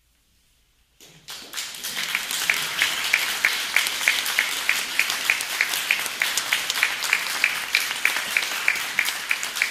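Audience applause breaking out about a second in after a brief silence. One pair of hands close by claps steadily, about three times a second, above the rest.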